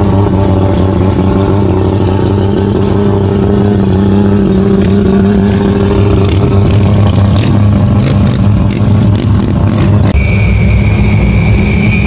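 A classic car's engine running steadily at low speed as the car rolls slowly past. About ten seconds in, a cut brings in another classic car's engine idling, with a steady high-pitched tone over it.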